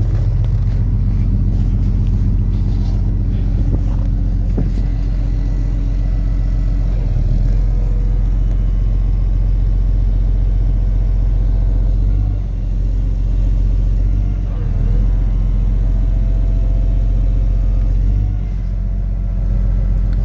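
Tow truck's engine running steadily, a low even drone that dips briefly a few times.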